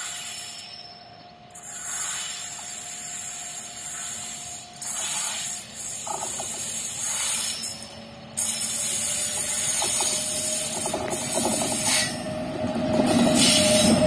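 WAG9 electric freight locomotive approaching along the track, its running sound growing louder over the last few seconds, over a steady high hiss.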